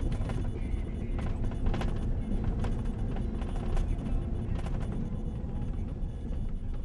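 Pickup truck driving on a rough dirt road, heard from inside the cab: a steady low rumble with frequent knocks and rattles as it jolts over the bumps.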